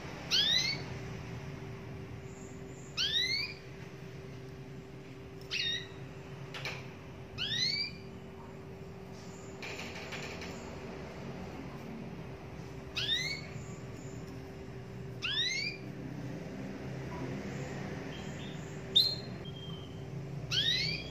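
Domestic canary giving short rising call notes, each a quick upward sweep, about one every two to three seconds, over a faint steady hum.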